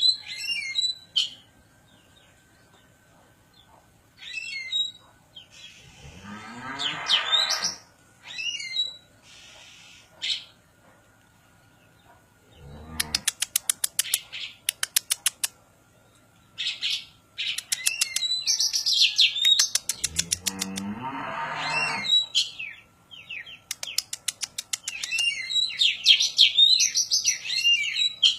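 Oriental magpie-robin (kacer poci) singing in varied whistled phrases and fast runs of sharp repeated notes. Twice, about six and twenty seconds in, it gives a longer, lower moo-like call, mimicking a cow.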